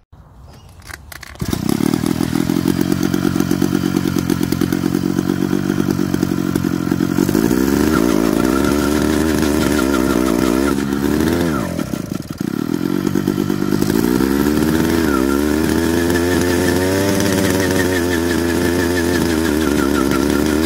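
Small two-stroke engine on a motorized bicycle, running hard and revving. It cuts in suddenly after about a second and a half, climbs in pitch about a third of the way in, dips briefly past the middle, then rises again and holds high.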